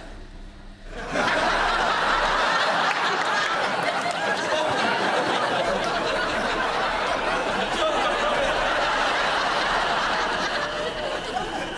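Studio audience laughing: the laughter swells suddenly about a second in and carries on steadily, tailing off near the end.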